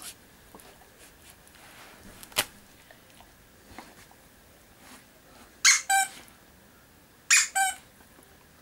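Plastic squeaker from a torn-up plush dog toy, squeezed twice in a dog's mouth as it chews the remains. Each squeak is a short, high two-part squeal, the two about a second and a half apart. A single sharp click comes a few seconds before them.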